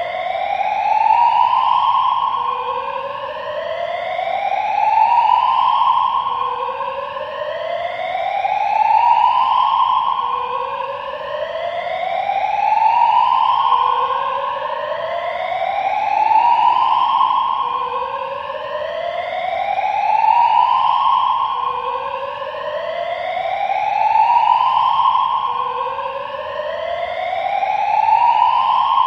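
Building fire alarm sounding a rising sweep tone, echoing through a large, deeply reverberant space. Each rise climbs over about three seconds, holds briefly at the top, then drops back and repeats, about every four seconds. This is an alarm test.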